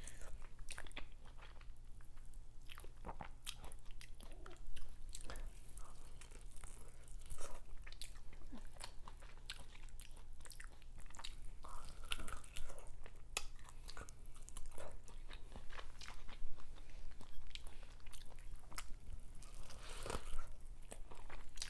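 Close-miked eating of corn on the cob: repeated bites and chewing with many short crunchy clicks, over a steady low hum.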